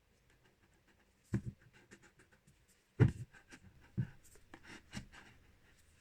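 A product box and its packaging being handled and opened by hand: a few sharp knocks, the loudest about three seconds in, with light scratching, rubbing and small clicks between them.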